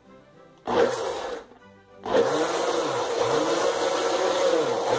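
Countertop blender mixing cake batter: a short pulse about a second in, then running steadily from about two seconds in, blending in the yeast added last.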